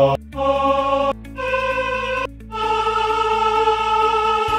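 Sampled men's choir singing a sustained 'ah-oh' vowel, auditioned one sample after another. Each note cuts off abruptly and the next starts at a different pitch, about a second and about two seconds in, and a final note is held.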